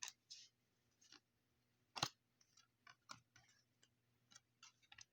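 Baseball trading cards being handled and flipped through by hand: faint, irregular clicks and flicks of card stock, with a sharper snap about two seconds in.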